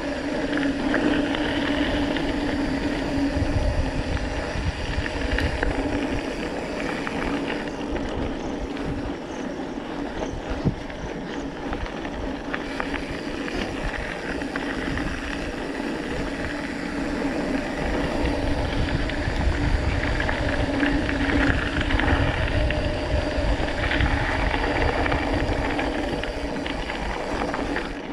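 Mountain bike rolling fast down a gravel dirt road: a steady rush of tyre noise with the bike rattling over the stones, and a gusting low rumble of wind on the handlebar-mounted camera.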